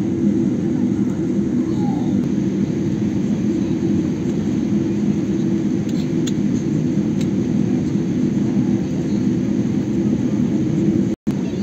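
Airliner cabin noise heard from inside the cabin as the plane moves on the ground: a steady low rumble of the jet engines and cabin air. The audio drops out briefly near the end.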